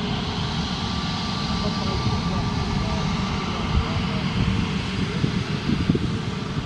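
Jet airliner engines running with a steady rumble and a faint steady whine.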